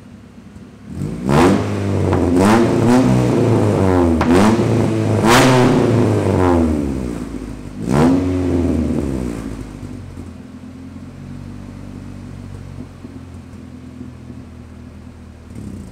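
Straight-piped Acura Integra with a B20 four-cylinder swap being revved with quick throttle blips, the revs rising and falling about six times over the first eight or nine seconds, then settling back to idle.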